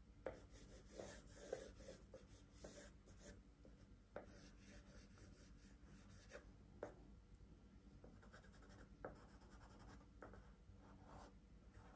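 Faint scratching of a drawing tool on paper: irregular short strokes sketching a tree, with a few slightly louder strokes scattered through.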